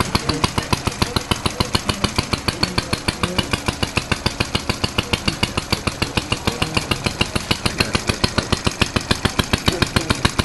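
Vintage Briggs & Stratton Model Y air-cooled single-cylinder engine running steadily on its own, its firing heard as a rapid, even string of sharp pops.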